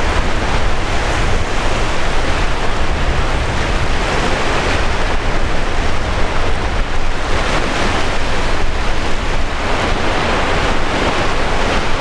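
Small waves breaking on a shallow shore: a continuous rush of surf that swells and eases, with wind rumbling on the microphone.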